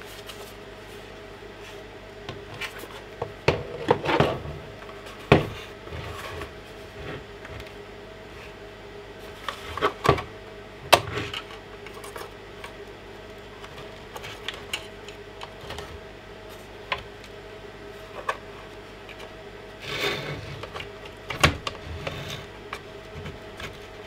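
Plastic housing of a Bosch VXAS012V18 handheld vacuum being pried apart with a metal pick: scattered sharp clicks and knocks with scraping and rubbing of plastic, heaviest in three spells, over a faint steady hum.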